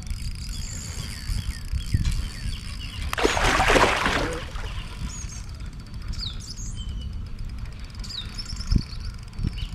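Songbirds chirping over a low rumble. About three seconds in comes a loud rush of splashing water lasting over a second, as the hooked musky thrashes at the surface.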